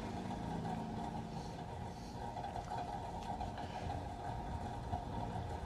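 Steady low background hum with no distinct strokes or knocks.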